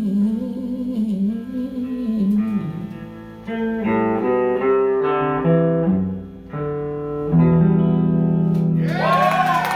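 Guitar playing the song's closing chords, with a wavering held note over them at first. A noisy burst, like a crowd starting to cheer, comes in just before the end.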